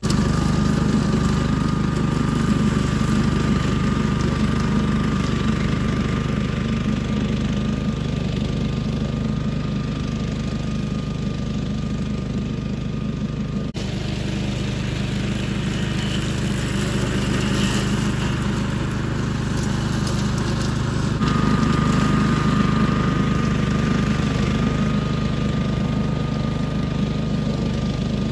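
Billy Goat hydraulic walk-behind brush hog running steadily as it is pushed through tall brush and weeds, its engine note carrying a steady high whine. The sound shifts abruptly twice, about halfway through and again near three-quarters of the way in, where the whine grows louder.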